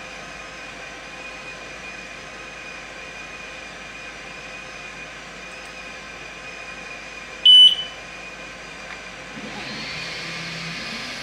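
xTool S1 20W laser engraver humming steadily, then two short high beeps about seven and a half seconds in as the scoring job starts. About two seconds later a louder rushing fan noise comes in with a rising whine and holds.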